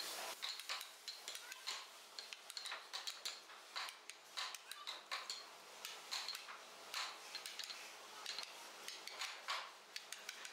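Wooden mallet striking a carving gouge driven into wood, a run of sharp knocks at roughly two a second, uneven in strength.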